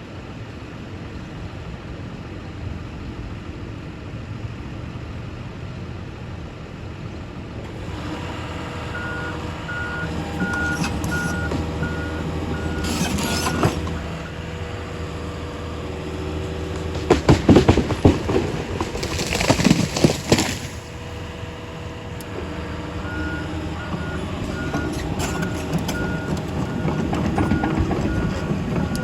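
Diesel engine of heavy equipment running steadily, with a back-up alarm beeping at an even rate, under two beeps a second, in two stretches. A cluster of loud clattering, hissing bursts comes a little past the middle.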